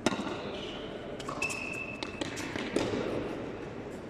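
Tennis balls being struck by rackets and bouncing on the court during a rally: a series of sharp hits, the loudest at the very start, with a short high-pitched squeak near the middle.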